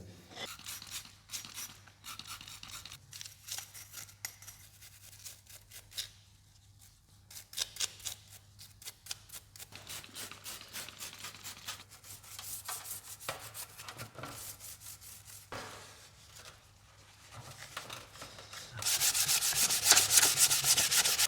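Fine sandpaper rubbed by hand on a motorcycle fork's chrome tube in repeated back-and-forth strokes, smoothing off rust. The strokes grow much louder and denser near the end.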